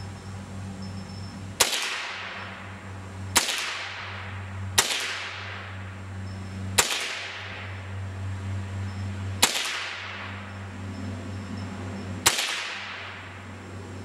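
Ruger 10/22 .22 LR rifle fired six times at an uneven pace, one to three seconds between shots, each crack followed by a long fading echo.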